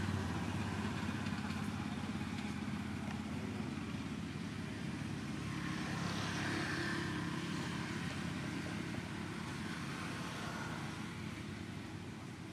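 Steady low hum of an engine running.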